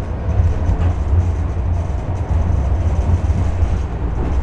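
Ganz KCSV6 tram running, heard from inside the passenger saloon: a steady low rumble of the wheels and running gear with a rolling hiss above it.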